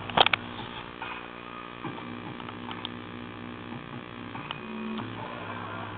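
JBL Go portable Bluetooth speaker playing a quiet passage of music: soft sustained low notes that change a couple of times, with a few clicks near the start.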